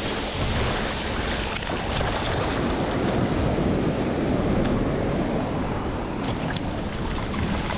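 Surf washing up over the sand at the water's edge, with wind buffeting the microphone: a steady, loud rushing noise.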